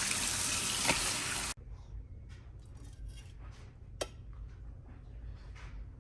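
Tap water running in the sink as the fish is washed, cutting off suddenly about a second and a half in. After that come faint small handling noises and one sharp clink about four seconds in.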